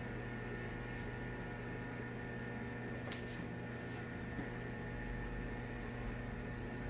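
Steady electrical hum of room tone, a low drone with several fainter steady tones above it, and two faint ticks about a second and three seconds in.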